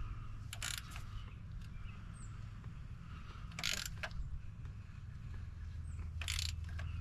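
Three short rasping strokes about three seconds apart, a hand tool working the oil filter of a Chevy Silverado loose during an oil change, over a steady low rumble.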